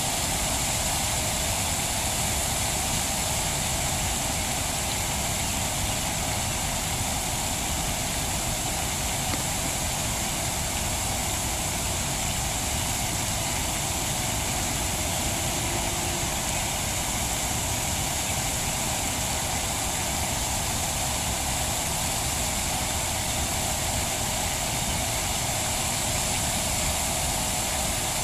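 Steady, unchanging background noise: a low rumble with a hiss over it, the kind of sound distant machinery or traffic makes.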